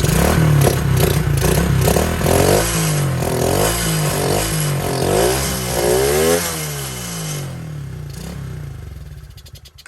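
Freshly restored 110cc dirt bike's single-cylinder engine running on its first start after the rebuild, revved up and down several times. It settles lower and then dies away at the very end.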